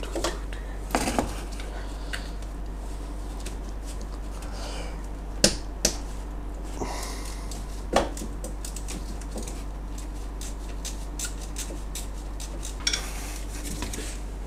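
Scattered metal clicks, taps and knocks from hands and tools working on the alternator and engine parts under a car's bonnet, with a few sharper knocks and a run of small ticks later on.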